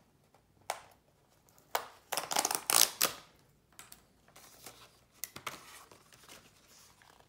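Black cardboard packaging being opened by hand: a tear strip is pulled off the box with a rasping tear about two seconds in, after a couple of sharp clicks. Softer rustling and scraping of cardboard follow as the flaps are unfolded.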